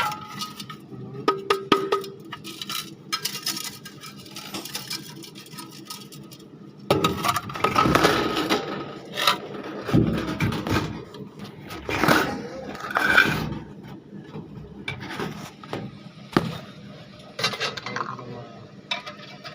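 Irregular metallic clinks, knocks and scrapes of shawarma-machine gas burner parts being handled and set in place during repair.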